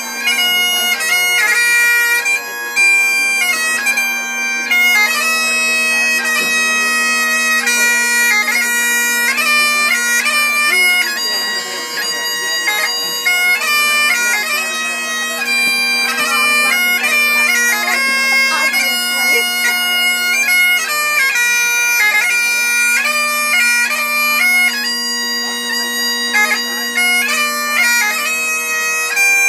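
Bagpipes playing a melody on the chanter over a steady drone.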